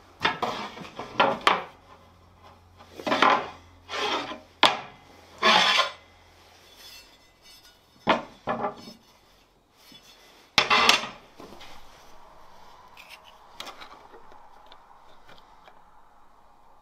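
A wooden tool handle and a piece of steel leaf spring being handled, set down and slid on a steel work table, making a series of knocks and scrapes. They come in clusters through the first six seconds and again about eight and eleven seconds in, followed by only faint small scrapes.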